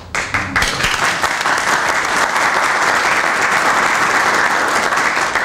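A small group of people applauding, breaking out all at once and holding steady.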